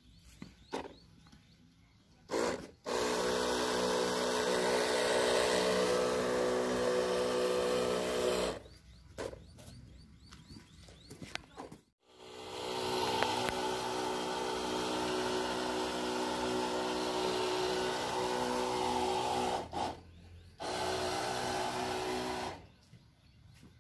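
Electric backpack sprayer's pump motor running with a steady hum and the hiss of the spray. It runs in three stretches: from about three seconds in, again after a short break, and briefly near the end.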